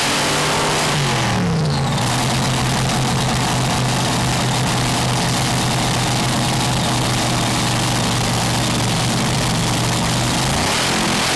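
Supercharged V8 of a top alcohol dragster idling, loud and steady; its pitch dips and settles about a second and a half in, and the steady note breaks up near the end.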